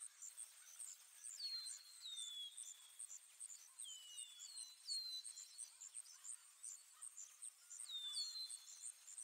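Faint evening nature ambience: a steady high insect trill pulsing evenly, with short falling bird whistles, several in quick pairs, scattered through it.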